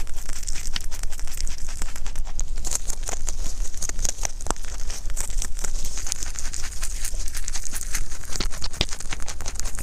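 Rabbit chewing fresh dandelion leaves and stems close to the microphone: rapid, crisp crunching and snapping.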